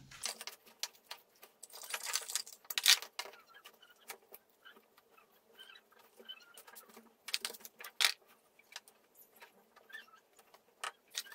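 A wooden spoon scraping and digging into damp potting soil, then hands pushing and pressing the soil back around a buried plastic bottle. It comes as an uneven run of small scratches, crunches and crackles, a few of them sharper.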